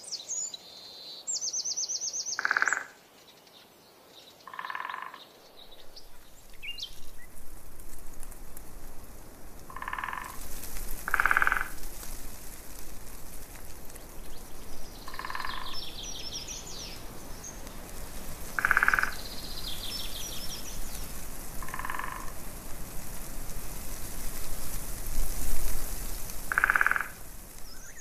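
Frogs croaking, one call every few seconds, with short high chirping trills in between. From about six seconds in, a steady rushing wash of noise lies underneath.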